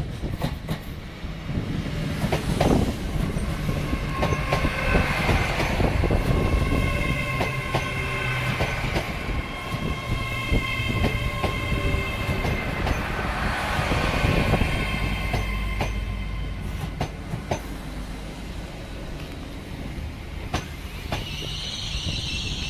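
TransPennine Express Class 802 bi-mode train running into the platform and slowing to a stop. Its wheels click over the rail joints under a steady rumble, with a steady high-pitched whine from the train as the carriages pass.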